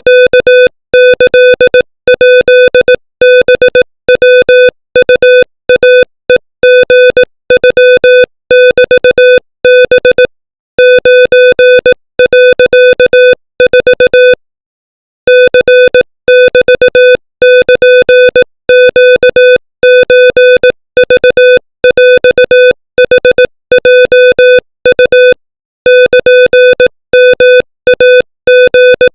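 Morse code sent as a computer-generated tone at 25 words per minute: a single buzzy tone keyed on and off in rapid dots and dashes, with slightly longer pauses between words. It spells out Thai-language text.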